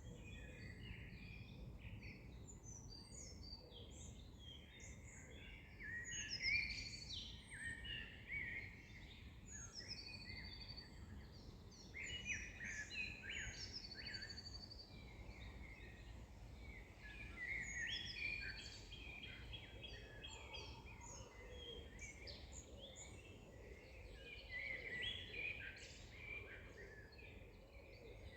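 Chorus of several songbirds chirping, trilling and whistling, overlapping, with a faint low background rumble.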